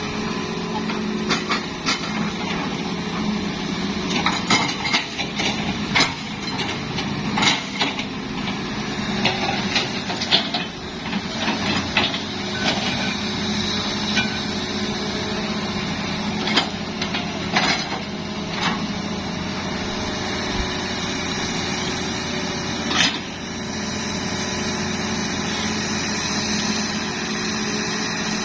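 Hitachi hydraulic excavator's diesel engine running steadily, with frequent short knocks and clanks from the working machine, the sharpest about 23 seconds in.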